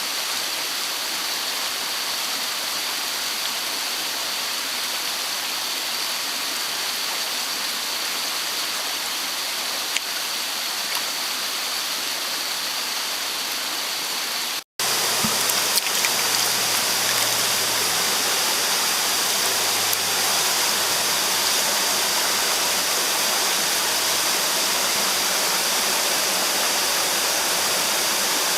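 Mountain stream rushing steadily over rocks. About fifteen seconds in, the sound drops out for an instant and comes back a little louder.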